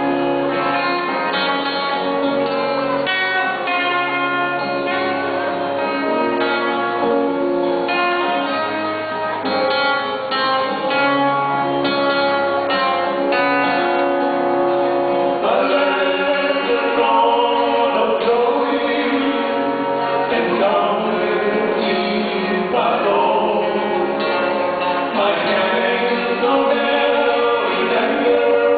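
Gospel song duet with lead guitar accompaniment: a guitar-led instrumental passage of held notes over a bass line, with the singers' voices coming in about halfway through.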